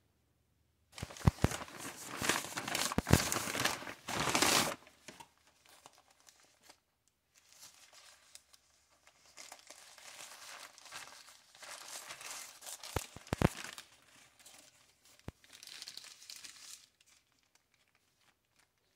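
Paper fast-food bag rustling and crinkling loudly for a few seconds as it is opened. The sandwich's paper wrapper then crinkles more softly while it is unfolded, with a few light taps.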